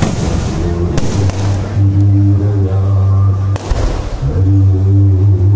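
Aerial fireworks shells bursting with sharp bangs, once about a second in and again about three and a half seconds in, over loud low-pitched music.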